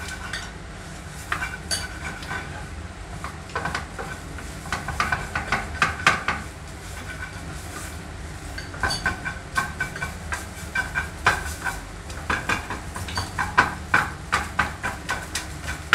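Spatula scraping and knocking against a metal frying pan while noodles are stir-fried, in irregular runs of clicks with a slight ring, over the steady low rush of a lit gas stove burner.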